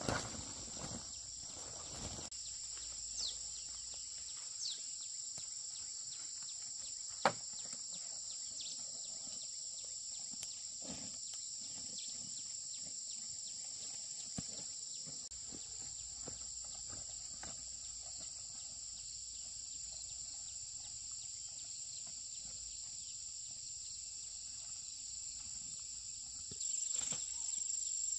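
Steady high-pitched chirring of insects, with scattered light clicks and one sharp click about a quarter of the way in.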